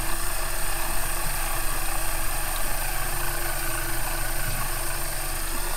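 Electric deep-drop fishing reel winding in line under the load of a hooked fish, a steady motor hum with an even tone.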